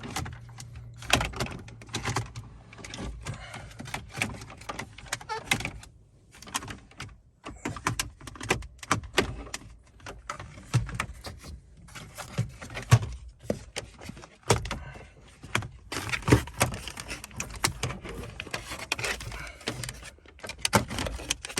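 Plastic interior trim of a Mini Cooper R56 dashboard being handled and pushed back into place: irregular clicks, knocks and rattles with short pauses.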